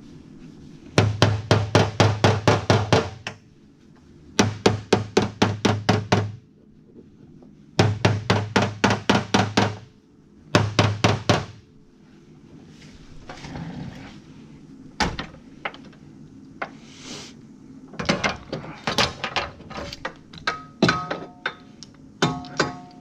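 Hammer blows on sheet metal in four quick bursts of about six strikes a second, then scattered lighter knocks and clicks with brief metallic ringing.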